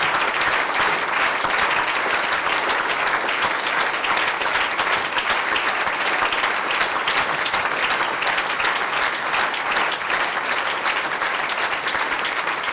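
A large audience applauding steadily, a dense even clapping with no let-up.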